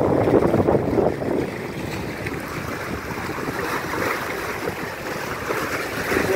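Wind-driven lake waves lapping and splashing against shoreline rocks, with wind buffeting the microphone; a little louder in the first second.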